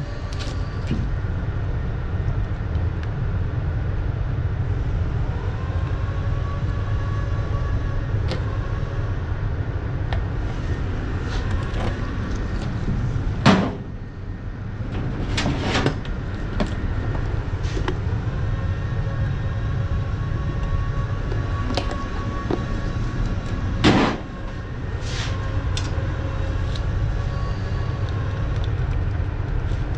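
Steady low machine rumble, with faint wavering whines above it and two sharp knocks, one about halfway through and one near three-quarters.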